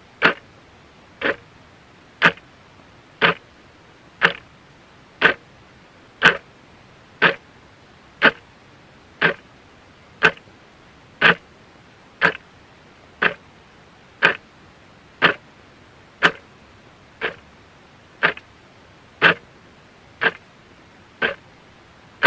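Clock ticking steadily, one sharp tick a second, with the ticks alternating slightly in strength in a tick-tock pattern.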